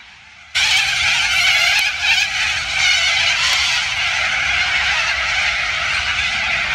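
Large flock of corellas screeching all at once, a dense, continuous chorus. It starts abruptly about half a second in, jumping from quieter calling to loud.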